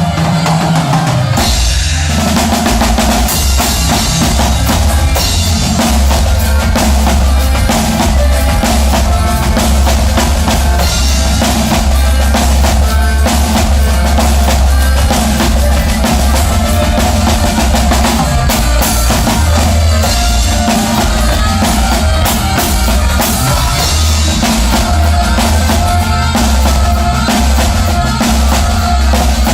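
Conjunto band playing live, with a drum kit and a heavy bass line, loud and steady.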